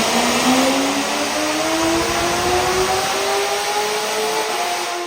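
A car engine at full throttle, its pitch rising smoothly and steadily through one long pull in a single gear over loud exhaust rush, then cutting off abruptly at the end.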